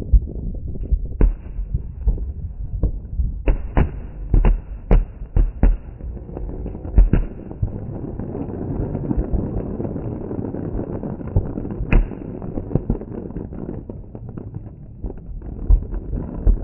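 Fireworks exploding: irregular sharp bangs, a quick run of them a few seconds in and a single loud one about twelve seconds in, over a steady low rumble.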